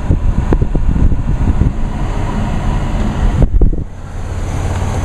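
A car's dashboard blower fan running on max with the air conditioning switched on, over the idling engine, heard inside the cabin; the air it blows is not cold. A few knocks come about three and a half seconds in, after which the sound is a little quieter.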